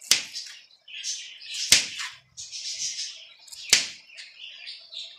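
Kitchen knife cutting garlic cloves on a cutting board: three sharp knocks of the blade hitting the board, one near the start, one under two seconds in and one near four seconds. Between the knocks come high, irregular chirping sounds.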